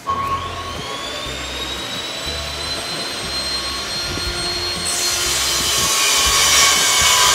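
An electric motor is switched on and spins up, its whine gliding upward and settling into a steady high whine over a rushing air noise. The rush grows louder about five seconds in.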